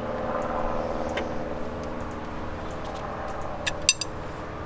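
A steady mechanical hum of several even tones, with a couple of light metallic clicks near the end.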